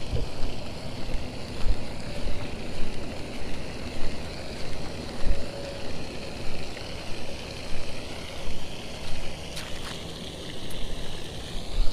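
Wind buffeting an outdoor camera microphone: a steady rushing noise with uneven low rumbles that rise and fall.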